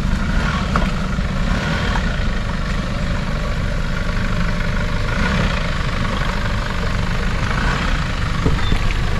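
Four-wheel-drive vehicle's engine running steadily at low revs, a constant low rumble.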